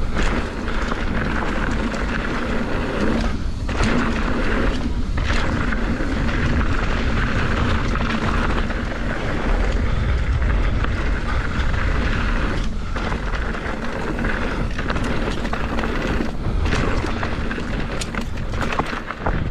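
Wind rushing over the microphone and bicycle tires rolling over packed dirt and leaves on a fast mountain bike trail descent, a steady rumbling noise with a few brief lulls.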